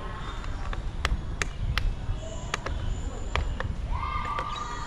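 Scattered sharp clicks and knocks of tools and plastic parts being handled on a motorcycle's headset and speedometer, over a low background rumble. A steady tone comes in about four seconds in.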